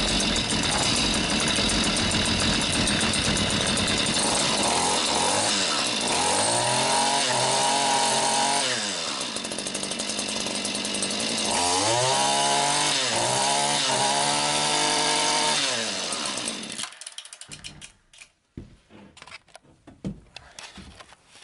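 Stihl FS 94 R string trimmer's small two-stroke engine running just after a cold start, high and steady at first, then revved up and down several times. It stops about sixteen seconds in, and a few light handling knocks follow.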